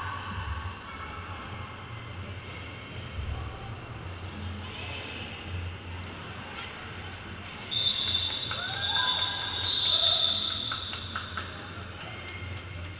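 Crowd chatter in a sports hall over a steady low hum. About eight seconds in, a loud, shrill, steady tone is held for about three seconds among shouts and sharp clicks.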